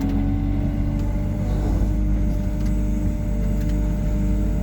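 Diesel engine of a Hyundai R140W-7 wheeled excavator running with a steady hum as the machine drives and turns around.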